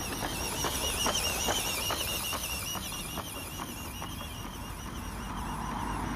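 Small 6-volt electric motor and gear drive of a 3D-printed Gauge One model 08 shunter running: a high, wavering whine, with regular clicks about two or three times a second that stop a little past halfway.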